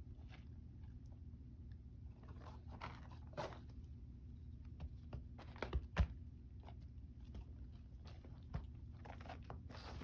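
Kitten playing with flowers: scattered small rustles and clicks, with a couple of louder knocks about six seconds in, over a steady low hum.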